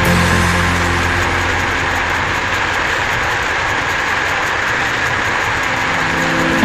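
Mountain bike's knobby rear tyre spinning on an indoor trainer roller as the rider pedals, giving a steady whirring drone with a low hum beneath it.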